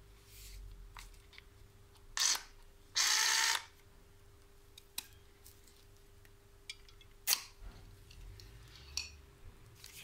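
Handling sounds from a Bosch EasyCut 12 cordless saw and its plastic carry case: a few sharp plastic clicks, the loudest about two seconds in and again near seven seconds, and a brief noisy scrape of under a second around three seconds in.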